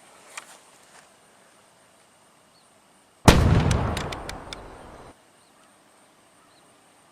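A sudden loud blast about three seconds in. Its rumble dies away over about two seconds, with a few sharp clicks in the tail, then cuts off abruptly.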